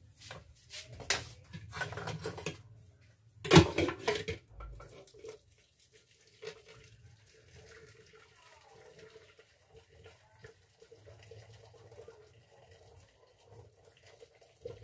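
Kitchen clatter: dishes and utensils clinking and knocking, with one loud knock about three and a half seconds in, then faint clatter and water sounds.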